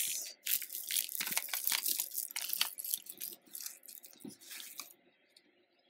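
A beaded stone necklace being handled: small beads clicking and rustling against each other and the tabletop in irregular little clicks, thinning out and stopping about five seconds in.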